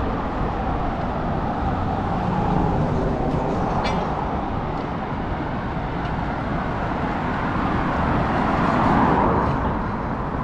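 City street traffic noise: a steady rush of cars going by, with one vehicle passing louder near the end.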